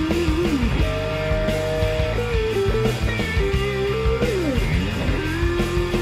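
Background rock music: a guitar melody that slides between notes over a steady beat.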